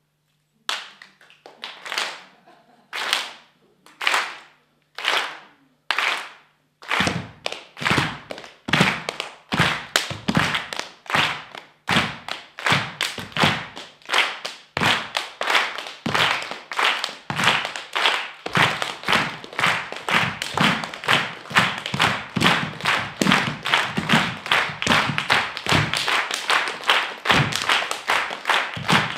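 A group of people clapping in unison, slow at first, about one clap a second. About seven seconds in it quickens, with a low thud under each clap, and it speeds up to about three claps a second.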